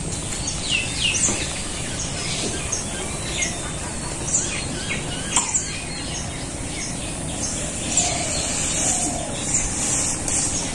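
Small birds chirping with many short, high calls scattered throughout, over a steady background hiss.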